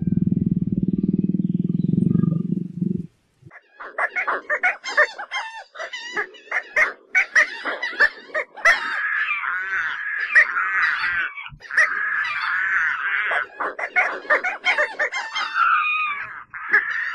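A big cat's low, continuous growl for about three seconds. After a short gap comes a crowd of pelicans calling: a dense, chattering stream of higher squawks that runs on to the end.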